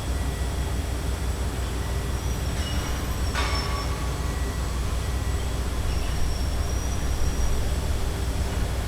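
Busy city street ambience: a steady low rumble of traffic and nearby construction, with a short hiss about three and a half seconds in and faint high squeals now and then.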